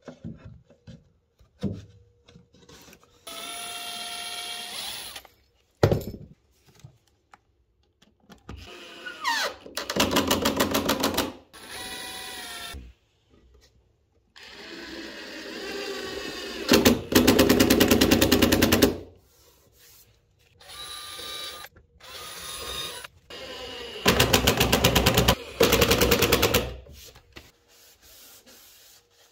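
Metabo cordless drill driving screws into stair timber in a series of short bursts of motor whine, some rising as the motor speeds up. The loudest bursts carry a fast rattling pulse.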